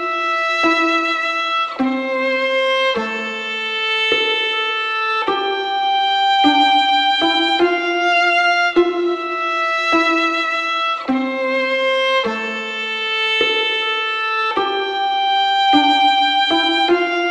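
Background music: a slow instrumental melody, each note held about a second before the next.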